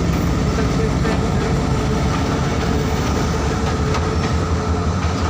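Passenger train at the platform: a steady low engine rumble with a constant hum and a few faint clicks.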